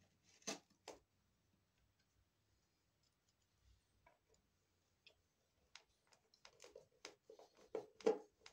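Small clicks and knocks from a plastic electrical box and a screwdriver being handled: two sharp clicks near the start, then a run of light clicks and knocks over the last few seconds.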